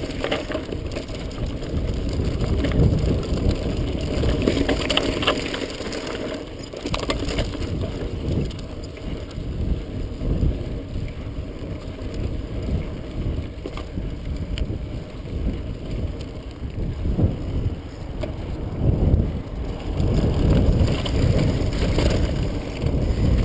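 Mountain bike riding down a dry dirt singletrack: a steady rumble of tyres on the dirt, with frequent knocks and rattles from the bike over bumps, and wind on the helmet-camera microphone. The rumble swells and fades with speed.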